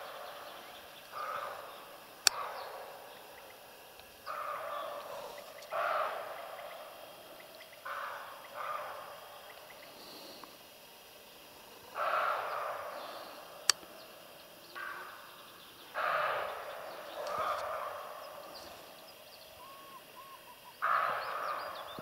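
Roe deer barking: about ten short alarm barks at uneven intervals, from more than one animal, with two sharp clicks in between.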